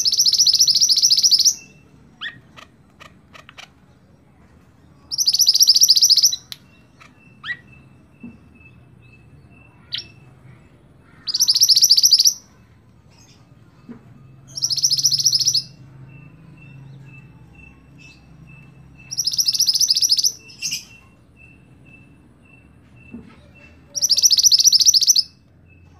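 Mantenan (scarlet minivet) singing: six rapid, high-pitched trilled phrases of about a second and a half each, a few seconds apart, with short single chirps between them.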